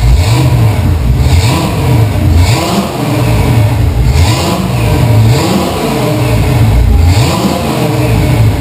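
Chevy small-block V8 running and being revved in repeated throttle blips, its pitch rising and falling about once a second.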